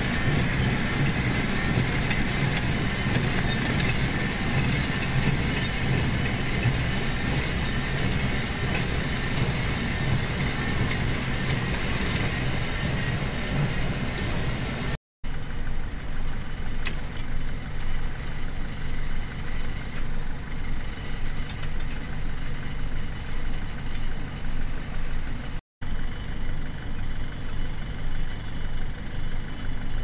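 Engine of a horse-drawn hay baler running steadily, a low hum under a rattling mechanical noise. It breaks off for an instant twice, and the second part is a little quieter and more uneven.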